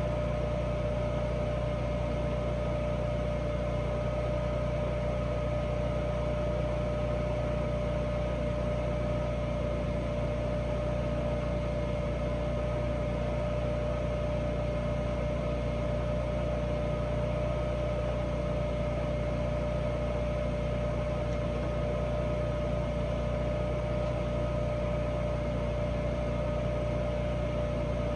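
Truck-mounted engine-driven welder running steadily, a constant drone with a steady hum over it.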